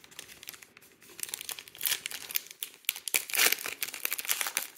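Foil wrapper of a Panini Mosaic baseball card pack crinkling as it is pulled open by hand, starting about a second in and loudest a little past the middle.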